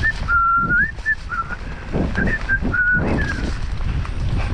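A person whistling a tune: a string of held notes with short upward slides, over a steady low rumble of the bike moving along the trail.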